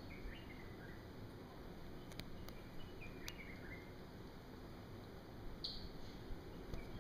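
Faint outdoor background with a few short, falling bird chirps scattered through it, plus a couple of light clicks a few seconds in.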